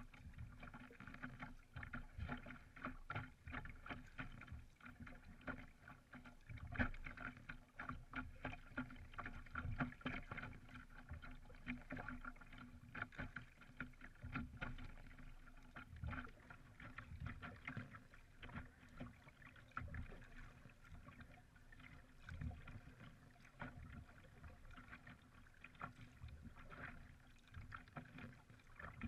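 Faint water sounds of a canoe being paddled on calm sea: irregular splashes and drips from the paddle and water lapping against the hull, with a dull knock every second or two.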